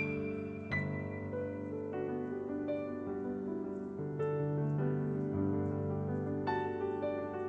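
Background piano music: a slow, gentle piece, with a note or chord struck every second or so.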